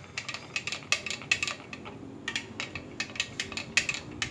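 A spoon stirring a sattu and water drink in a glass, clinking against the glass several times a second in quick, irregular strokes.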